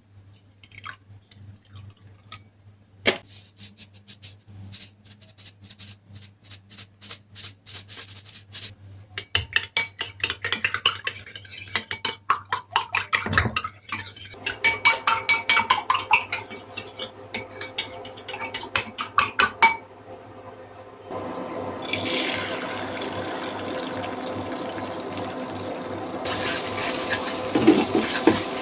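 Kitchen work sounds: a quick run of even clicks, then metal utensils clinking and ringing against dishes, then a steady rush of running water.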